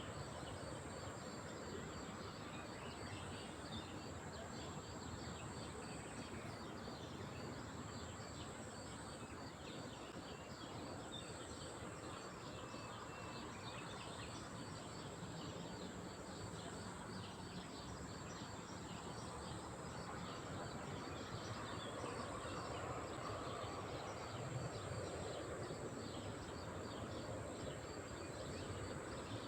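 Lakeside nature ambience: a steady wash of noise with many small bird chirps and twitters, and a steady high-pitched insect-like buzz.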